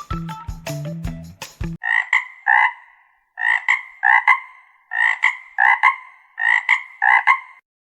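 A frog croaking: short, sharp croaks, mostly in quick pairs, about a dozen in all, starting about two seconds in. A short stretch of background music plays before the croaks begin.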